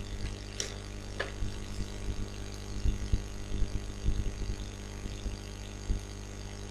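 Steady low electrical hum and background noise of the recording, with a few short soft low thumps through the middle and two brief faint falling sounds near the start.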